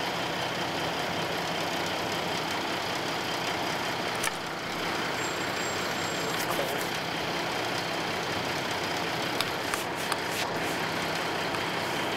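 Fire truck's engine idling steadily, with a few short clicks about four seconds in and again near the end.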